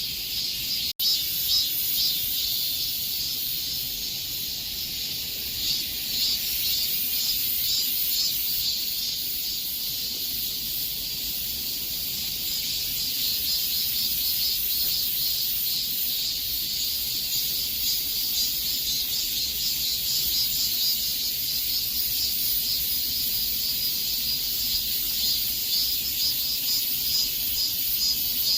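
Chorus of cicadas buzzing continuously, a high-pitched shrill drone with a fast, flickering pulse. It drops out for an instant about a second in, then carries on unchanged.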